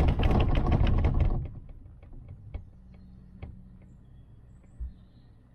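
Gondola cabin's rollers running through a cable car tower's sheave assembly: a loud, rapid clicking rattle over a rumble that dies away about a second and a half in, leaving a few scattered clicks and a low thump near the end as the cabin rides on along the rope.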